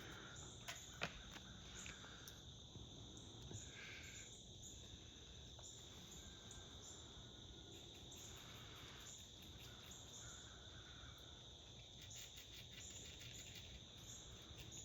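Faint, steady chorus of crickets and other insects: one continuous high trill with pulsing higher chirps over it. A few soft clicks.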